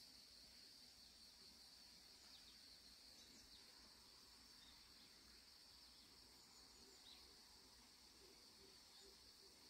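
Near silence with a faint, steady, high-pitched insect chorus.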